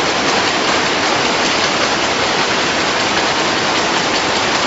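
Steady, even din of chewing gum production machinery running on the factory floor, a dense hiss-like noise with no clear rhythm.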